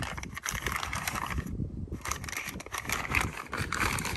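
Packaging rustling and crinkling as brake kit parts are unwrapped and handled, a dense run of small crackles with a short pause about one and a half seconds in.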